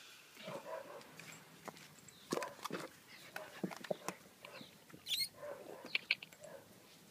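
Puppies nosing and scrabbling about, with scattered small knocks and scuffs and a few short, faint whines.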